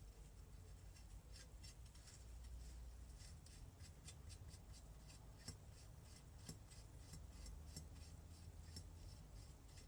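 Faint, irregular light clicks and rubbing of small engine parts being handled, several ticks a second at times, over a low steady hum.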